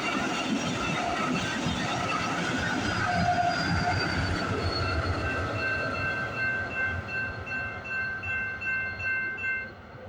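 Train passing through a level crossing with rumbling wheel noise. From about halfway, a rapid, evenly repeating ringing tone, typical of the crossing's warning bell, sounds over it. Both stop abruptly just before the end.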